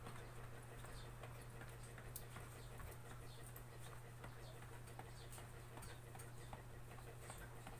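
Quiet room tone: a steady low hum with faint, irregular soft ticks and clicks.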